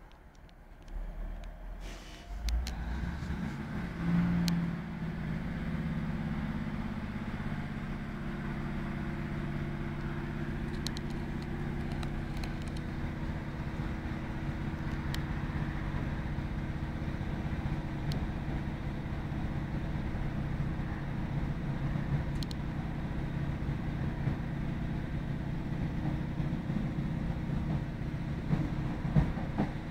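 Class 156 Sprinter diesel multiple unit heard from inside the carriage, its underfloor Cummins diesel engine running with a steady low drone as the train travels along. The drone builds over the first few seconds, then holds even, with a few faint clicks now and then.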